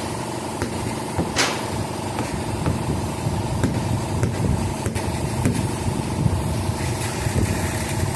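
Air compressor running steadily while a wide tubeless rear tire is being aired up. The bead is not yet seated and leaks, so pressure stays low. A few light clicks and knocks sound over it.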